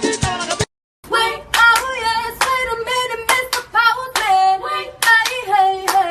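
A short stretch of a song with drums ends suddenly, and after a brief silence held, wordless singing starts over a steady beat of handclaps.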